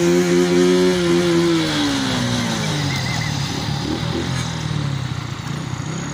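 Tractor engine running close by, its pitch holding and then dropping about two seconds in, with a steady engine din after that.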